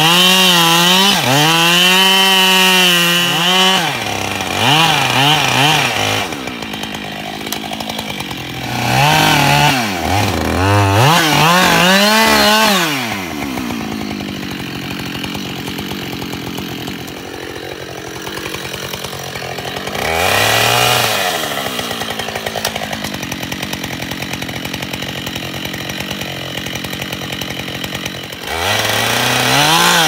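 Two-stroke chainsaw cutting into the base of a lime tree trunk. The engine revs hard in bursts, its pitch rising and falling. From about halfway through it drops to a steady idle with one brief blip, then revs up again near the end.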